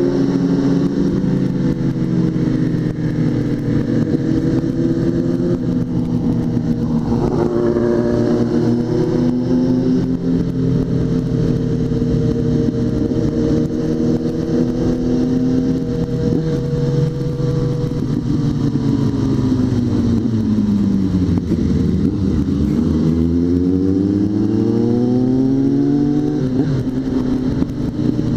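Suzuki GSX650F's inline-four engine running at a steady cruise under wind noise. After about eighteen seconds the engine note drops as the bike slows, then climbs back up as it accelerates.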